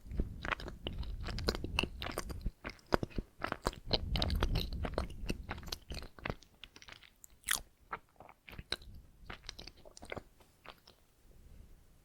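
Close-miked chewing of donut, full of small mouth clicks and crackles, busiest in the first half and thinning out toward the end.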